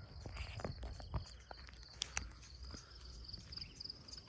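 Footsteps crunching and rustling through dry grass and weeds, with a steady high insect trill throughout.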